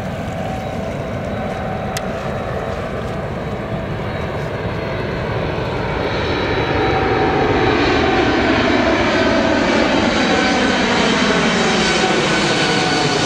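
Boeing 747 freighter's four jet engines on final approach, growing louder about six seconds in as it comes in low and passes overhead, with steady whining tones and a sweeping whoosh over the deep rumble.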